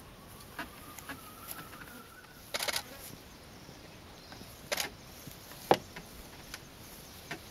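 Scattered sharp clicks and taps close by: a quick cluster about two and a half seconds in and a single loudest click near six seconds. Under them, a faint thin whistle rises slightly over the first two seconds.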